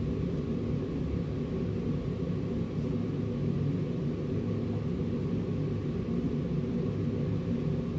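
Steady low background rumble and hum, with no distinct events.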